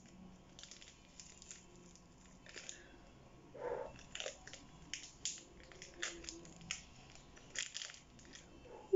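Thin clear plastic wrapping crinkling and tearing in short, irregular crackles as it is peeled off a frozen ice-cream bar on a stick.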